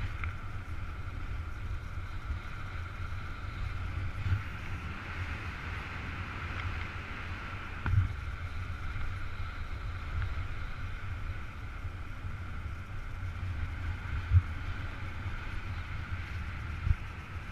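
Wind rushing over a paraglider pilot's body-mounted camera microphone in flight: a steady, fluttering low rumble with a hiss above it, broken by a few brief thumps.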